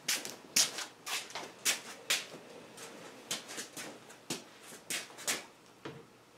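Footsteps scuffing on a concrete floor and light knocks as a portable air compressor is wheeled back into place: an irregular string of short scuffs and clunks, two or three a second.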